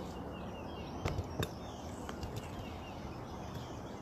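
Three light knocks of the camera being handled and set down on a truck roof, over a steady outdoor background hiss, with faint bird chirps in the first second.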